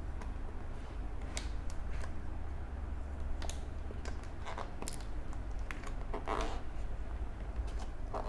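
Tape being picked at and peeled off a cardboard box: scattered small clicks, scrapes and crinkles, over a steady low hum.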